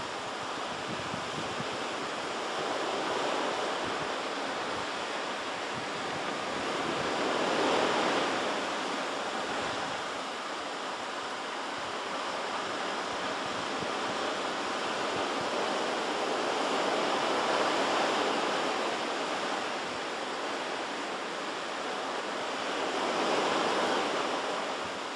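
Ocean surf: a continuous wash of waves that swells louder about four times as breakers come in and recede.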